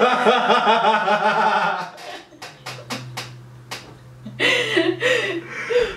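A man and a woman laughing together, hardest in the first two seconds, then quieter, broken laughter with short sharp breaths.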